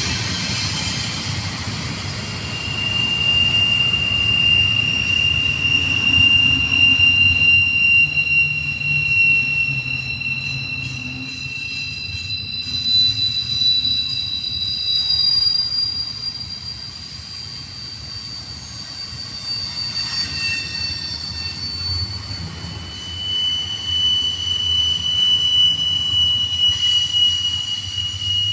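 Double-stack container train on well cars rolling past close by: a steady rumble of wheels on rail with high, thin wheel squeal that drifts slightly in pitch and fades in and out, loudest in the first half and again near the end.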